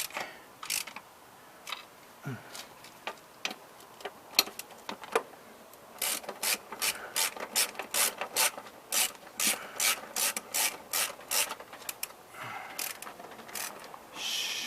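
Ratchet wrench clicking on its pawl: a few scattered clicks at first, then a steady run of about two to three clicks a second for several seconds.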